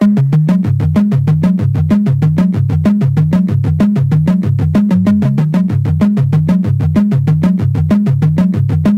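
Background electronic music with a pulsing synth bass line under a fast, steady beat, starting abruptly.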